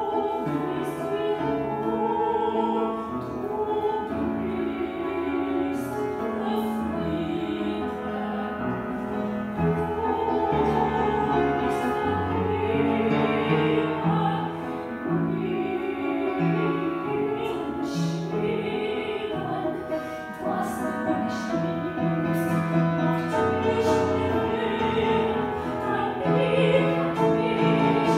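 A woman singing in a trained classical voice with vibrato, accompanied by piano.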